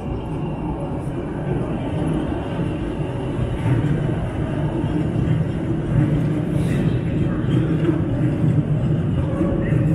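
Elevated rapid-transit train running along a curved elevated track, a steady low rumble that grows louder over the first few seconds as the train comes closer, then holds.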